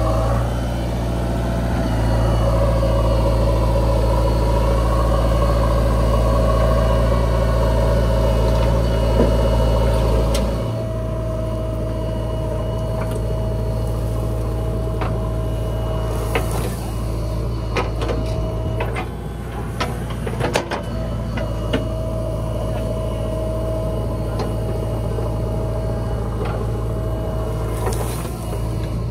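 Heavy diesel machinery running steadily with a low drone, dropping in level about ten seconds in. A few sharp knocks come in the second half.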